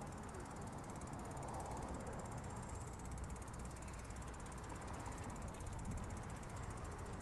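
Mountain bike with 2.6-inch tyres rolling along a path, heard from its handlebar camera: a steady rumble of tyres and wind on the microphone, with fast, even ticking throughout.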